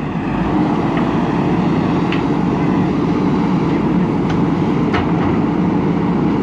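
Diesel engine of a JCB 3DX backhoe loader running steadily under work, with a few faint metallic clinks.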